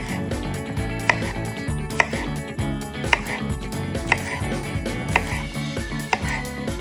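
Kitchen knife slicing a zucchini into rounds on a cutting board: a sharp tap of the blade hitting the board about once a second, over background music.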